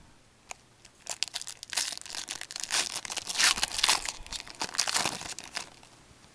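Foil wrapper of a 2007-08 Fleer Ultra hockey card pack being torn open by hand. It crinkles and tears in a busy run of crackles from about a second in until near the end, with one small click just before.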